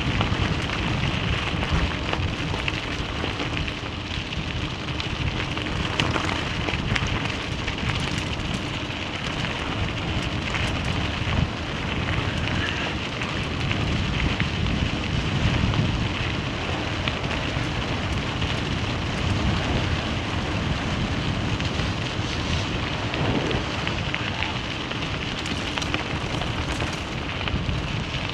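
Tyres rolling over a gravel road, a steady crackling crunch of loose stones over the low rumble of the moving vehicle.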